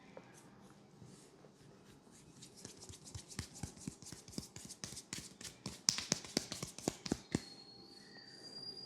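Hands rapidly tapping and slapping during a percussive head massage: a quick series of sharp strikes, about four a second, growing louder and stopping abruptly.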